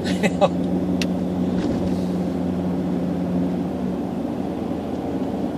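Car driving, heard from inside the cabin: a steady low drone of engine and road noise, its humming tone dropping away about four seconds in. A brief click about a second in.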